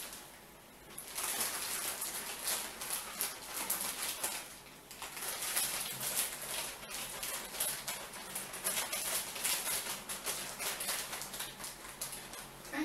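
Plastic Ziploc freezer bags crinkling and rustling as they are handled, a steady run of small crackles with a short lull just after the start and another about five seconds in.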